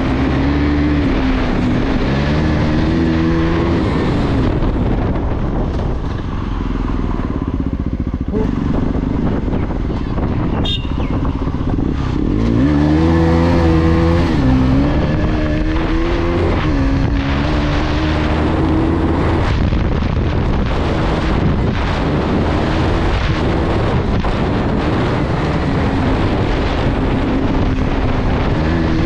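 KTM 250 Adventure's single-cylinder engine under way, its pitch rising and falling as the throttle is opened and closed through the gears, over a constant rushing noise. It eases off for a few seconds about a quarter of the way in, then pulls hard again near halfway.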